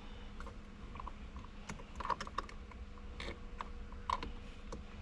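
Irregular light clicks and taps, about a dozen in all, as small tools are worked through the holes in the back of a steering wheel to push on the airbag's release springs.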